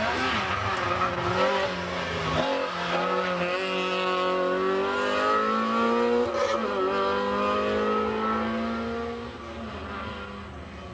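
Group A hillclimb race car accelerating hard up a mountain road. The engine note climbs in pitch in several runs, dropping back at each gear change, then fades near the end as the car pulls away.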